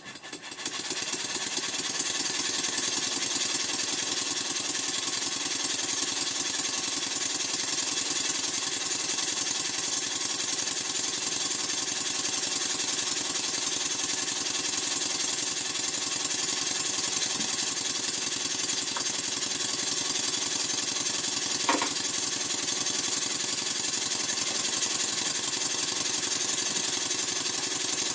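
Stuart No. 4 model steam engine running fast on compressed air, its exhaust beats rapid and very even: the sign of valve timing now set correctly, with air admitted just before top and bottom dead centre. The sound rises to full strength in the first second, then holds steady.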